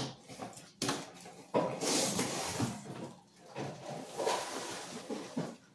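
Cardboard shipping box being cut open with scissors and its taped end flap pulled open: a sharp snip right at the start, another click about a second in, then several seconds of scraping and rustling cardboard and packing tape.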